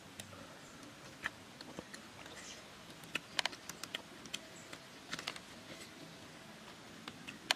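Faint hiss with scattered small clicks and crackles, a quick cluster about three seconds in and more around five seconds, from hands tearing at and eating roasted chicken.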